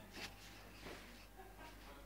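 Soft-close kitchen drawer being worked on its runners: a few faint knocks and slides, very quiet.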